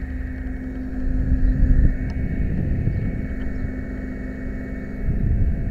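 A fire truck's 95-foot aerial ladder is being moved under power, heard from the ladder tip as a steady mechanical hum over a low rumble. The hum breaks off briefly about a second in and stops near the end, as the rumble grows louder.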